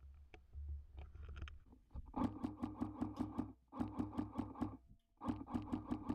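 Automatic electric airsoft gun firing full-auto in three bursts starting about two seconds in, each a rapid string of sharp clicks, about nine a second, over the buzz of its motor and gearbox.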